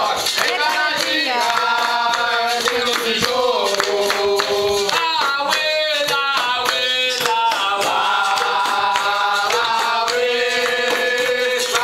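Capoeira roda music: a group of men and women singing a capoeira song together over steady rhythmic hand clapping.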